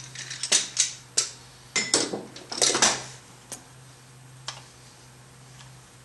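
Metal tools and parts clinking and clicking against each other, a quick cluster of sharp clinks over the first three seconds, then a couple of single ticks.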